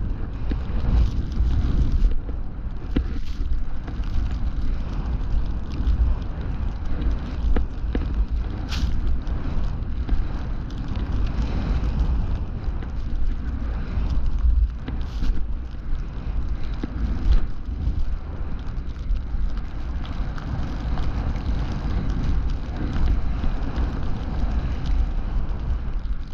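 Wind buffeting an action camera's microphone during a snowboard descent through deep powder: a steady low rumble with a rushing hiss of the board through the snow over it, and a few faint knocks.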